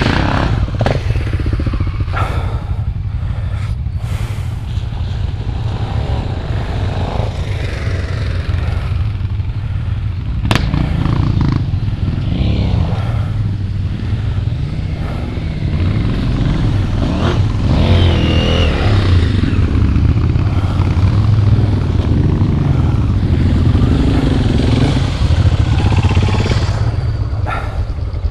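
Off-road motorcycles riding up a rough trail one after another, engines revving up and falling back as they climb, over a constant low engine rumble.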